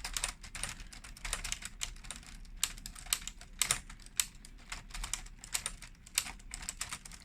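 Keys of a Lego 21327 typewriter model being pressed, the plastic keys and the single striker arm clicking in a quick, irregular run of a few taps a second.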